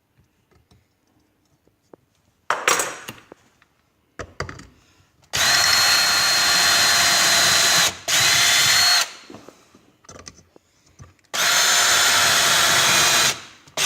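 Porter-Cable power drill boring holes through a rubber snow-blade cutting edge. It runs in short bursts of one to a few seconds, each with a steady high whine, and there are knocks and clatter between the bursts.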